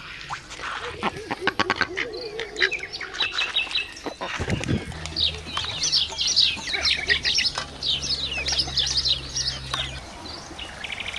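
Birds calling: a low warbling call and a quick run of sharp clicks in the first two seconds, then a fast, high-pitched chirping chatter through the middle, over a steady low hum that starts about four seconds in.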